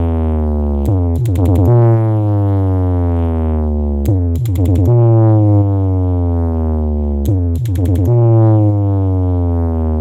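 Low-frequency test on a large DJ sound system: deep synthesizer bass notes, each sliding down in pitch over about three seconds, repeated three times with short runs of rapid drum hits between them.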